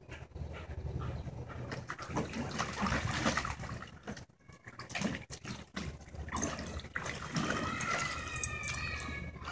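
Huskies playing in a plastic wading pool: water splashing and sloshing in irregular bursts. From about two seconds before the end, a husky whines in a high, wavering voice.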